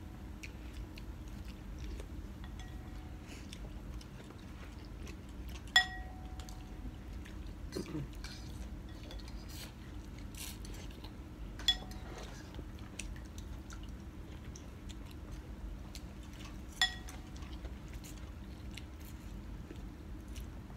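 Ceramic soup spoon and chopsticks clinking against porcelain bowls during a meal of pho, with three sharp ringing clinks about six, twelve and seventeen seconds in, amid quieter ticks of utensils and chewing.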